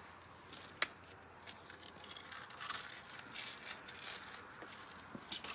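A metal ladle knocking and scraping against aluminium pots as food is dished into them: one sharp clink about a second in, scattered scraping and rustling after, and another clink near the end.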